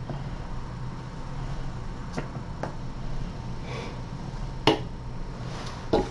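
A few short sharp clicks over a steady low hum, the loudest a little before the end.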